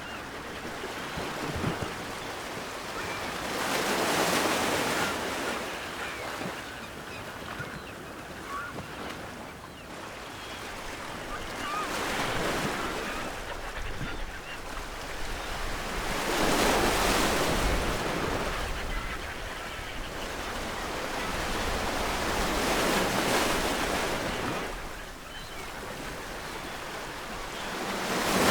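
Ocean surf breaking on a shore, a steady wash that swells into four louder surges and eases back between them.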